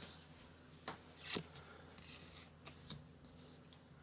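Soft rustles and a few light clicks of Pokémon trading cards being handled and flipped one by one.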